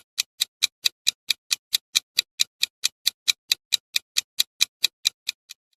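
Countdown-timer ticking sound effect: sharp, even clock-like ticks, about four to five a second, stopping just before the end.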